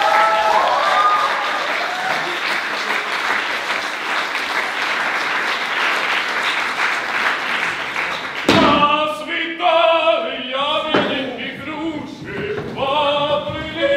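Audience applauding, with a few voices cheering near the start, until the applause cuts off abruptly with a thump about eight and a half seconds in. Voices follow.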